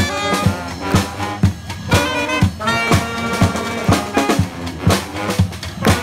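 A street band of horns and drums playing a lively tune: soprano saxophone, trombone and sousaphone over a snare drum keeping a steady beat of about two strokes a second.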